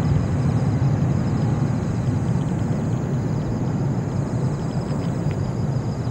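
Boeing 777-300ER's GE90 jet engines, a deep steady rumble as the airliner comes in to land, slowly fading as it moves away.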